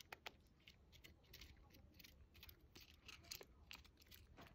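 Faint, scattered small clicks and crackles from a Siberian chipmunk moving about at close range in a tray of snow.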